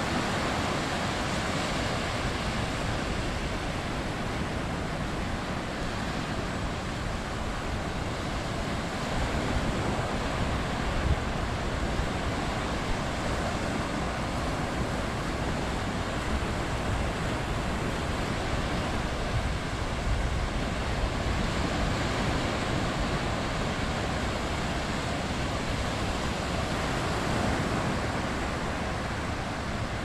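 Small surf breaking and washing up a flat sandy beach: a steady rush of water that swells a little now and then.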